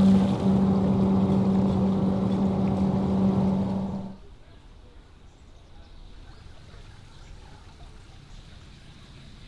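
A motor running with a steady, loud hum that cuts off abruptly about four seconds in, leaving only faint outdoor background noise.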